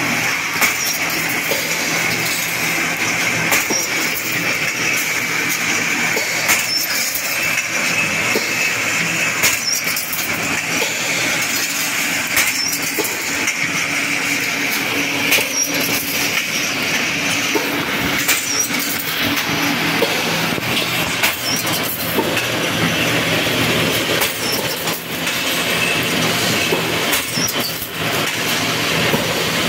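Wire straightening and cutting machine running, a steady high whine with frequent metallic clicks and knocks.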